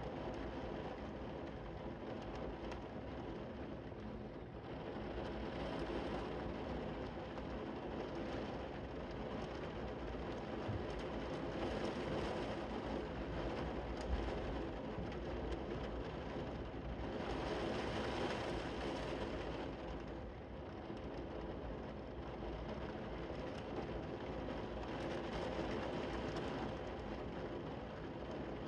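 Heavy rain falling steadily, a dense hiss that swells a little in the middle.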